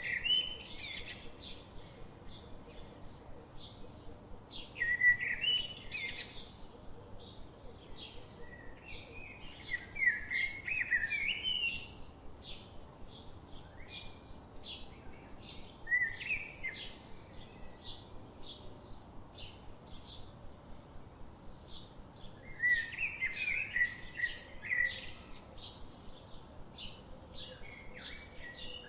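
Birds chirping: short high chirps repeating steadily about twice a second, with louder warbled phrases breaking in every few seconds, over a faint steady hiss.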